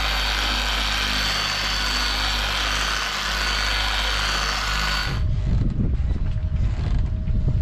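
Electric dual-action polisher with a foam pad running steadily on a gelcoated fiberglass hatch, polishing it. About five seconds in it cuts off abruptly, and wind gusts buffet the microphone.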